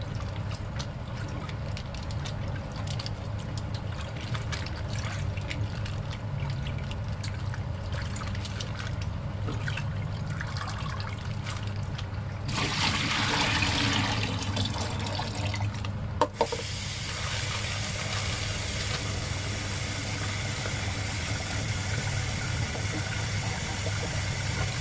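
Kitchen tap water running while rice is rinsed in a cooking pot, with small patters and swishes of water and grains. The water rushes harder for a moment just before the middle, and there is one sharp knock a little after it, over a steady low hum.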